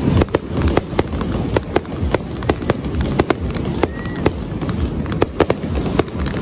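Aerial fireworks bursting: an irregular rapid series of sharp bangs and pops, about three a second, over a low rumble.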